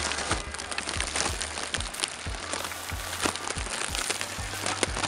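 Wind and snow buffeting a phone microphone: dense crackling over a low rumble.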